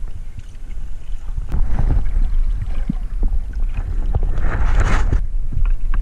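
Underwater recording: a steady muffled rumble of water moving past the camera, with louder rushing, gurgling surges about a second and a half in and again around four and a half seconds in.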